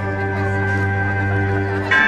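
Background music: one long held chord, with a new chord coming in near the end.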